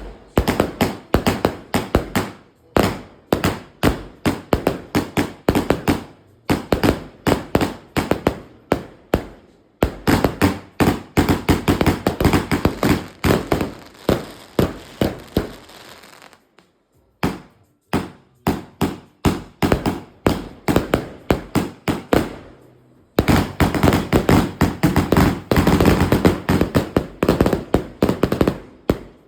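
Firework barrage (a multi-shot cake) firing rapid volleys of sharp bangs, several a second, in runs broken by short pauses about halfway through and again near three-quarters of the way.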